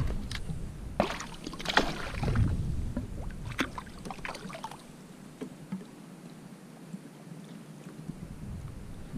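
Sharp clicks and rustles of fishing line and tackle being handled aboard a kayak over the first four or five seconds, with water lapping against the hull, then a quieter stretch of faint water noise.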